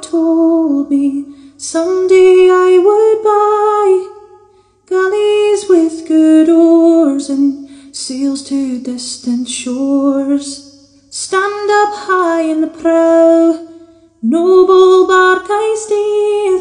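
Music: a woman singing slow, held phrases, with short breaks between them.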